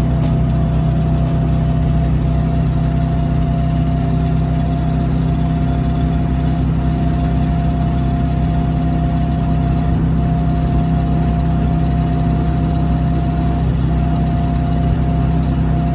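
Classic Fiat 500's air-cooled two-cylinder engine, a 750cc build freshly rebuilt, running at an even speed on a highway test drive, with a thin steady whine above the engine drone.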